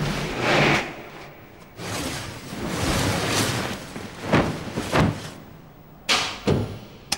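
A series of sudden thumps and bangs, about half a dozen, irregularly spaced, each with a short ringing tail.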